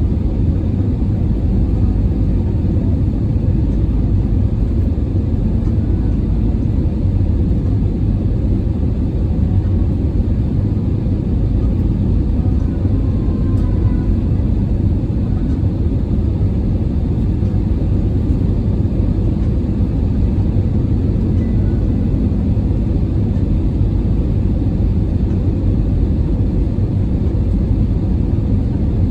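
Steady low rumble of engine and airflow noise inside the cabin of an Airbus A320 in flight.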